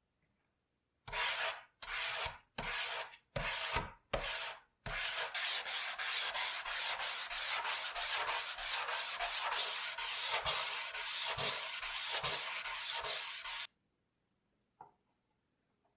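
Sandpaper rubbed by hand along the steel blade of a paper guillotine: five slow separate strokes, then quick back-and-forth strokes at about three or four a second that stop suddenly near the end.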